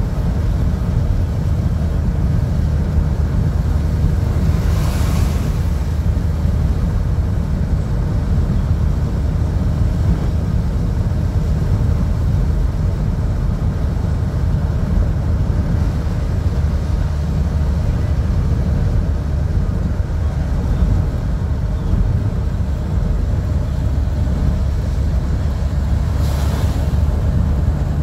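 Steady low rumble of a car driving on a wet road, heard from inside the cabin, with the hiss of tyres on wet tarmac. Two brief swooshes come through, one about five seconds in and one near the end.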